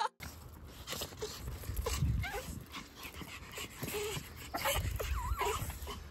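Small dogs whining and yipping: short high cries that rise and fall, over and over.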